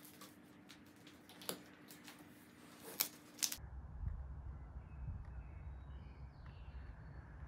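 A few sharp taps and clicks from handling sand-packed steel tubing whose ends are being capped with duct tape. About halfway through they give way to a low steady rumble.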